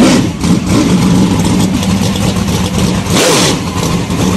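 Race car engine running loud and revving, with a brief surge of rushing noise about three seconds in.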